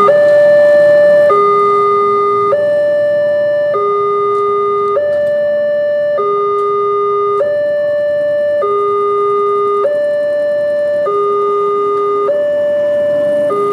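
Electronic two-tone alarm of a railway level crossing signal, steadily alternating between a higher and a lower note about every second. It sounds while the barriers are down and the red lights flash, warning that a train is approaching.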